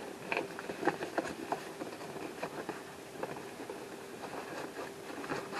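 Hands handling and working open a printed cardboard model-kit box: scattered light taps, clicks and rustles, busier in the first couple of seconds.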